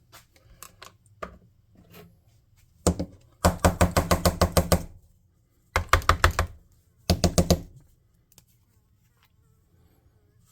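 A paint bottle being shaken, rattling in rapid knocks at about eight a second in four bursts. The longest burst comes about three and a half seconds in and lasts about a second and a half.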